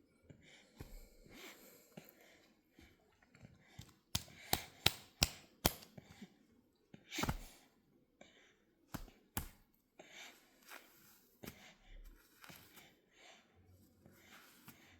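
Baby feeding on formula from a bottle: soft breaths and sucking noises, with a quick run of sharp smacking clicks a few seconds in, a louder breath after them and two more clicks a little later.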